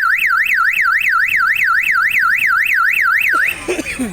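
Car alarm siren sounding, a loud fast up-and-down warble of four to five sweeps a second, which cuts off suddenly about three and a half seconds in.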